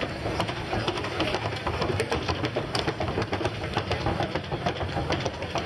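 Colombian criollo mare's hooves beating rapidly in the four-beat trocha gait: a fast, even clatter of many quick hoofbeats.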